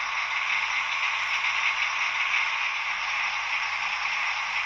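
H0 model train running on the layout's track: the steady rushing noise of the locomotive's motor and the wheels rolling on the rails.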